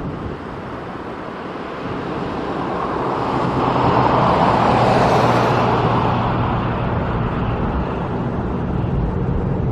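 Road traffic: a vehicle passes, its noise building to a peak about five seconds in and then easing off, over a steady low engine hum.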